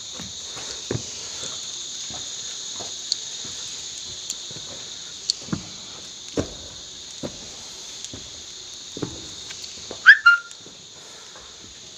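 A steady, high-pitched chorus of insects, with footsteps on rock about once a second as someone climbs. About ten seconds in there is a short, loud, high-pitched squeak.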